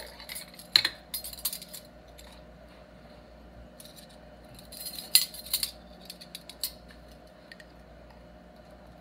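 Metal measuring spoons clinking and scraping against a glass mason jar while baking soda is scooped out, in two short runs of clicks about a second in and again around five seconds in.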